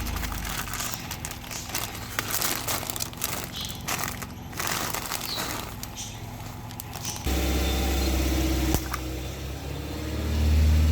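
Crackling and crunching as a car's tyres crush crunchy objects. About seven seconds in, this cuts off suddenly to the car's engine running steadily, getting louder near the end.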